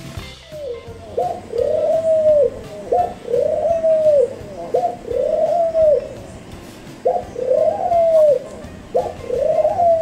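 A dove cooing: a short rising note and then a longer arched coo, repeated about five times at an even pace.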